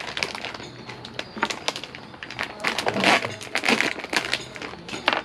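Plastic snack wrappers crinkling and rustling as packages are handled and opened by hand: a dense run of crackles, loudest about three seconds in.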